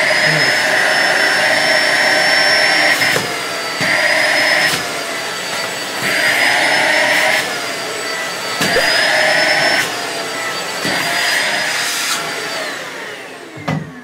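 Deerma DX700 600 W corded handheld vacuum cleaner running with its crevice tool, a loud motor whine over rushing air. The sound dips and swells again four or five times as a sheet of paper is drawn against the nozzle and pulled away. Near the end the motor is switched off and winds down, its pitch falling away.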